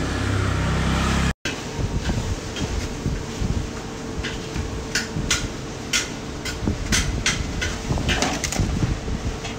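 A metal ladle scooping steamed rice from a large metal pot into foam takeaway boxes: a run of sharp taps and knocks against the pot and box rims over a steady hum. The sound drops out for a moment about a second and a half in.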